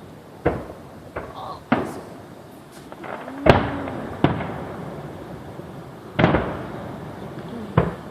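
Fireworks bursting: about seven sharp bangs at uneven intervals, the loudest about three and a half and six seconds in, each trailing off in a rolling echo.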